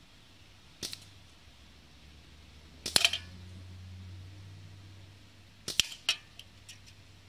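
A few sharp knocks and snaps: one about a second in, the loudest cluster around three seconds, and another cluster near six seconds followed by a few lighter ticks. A faint low hum runs under the middle.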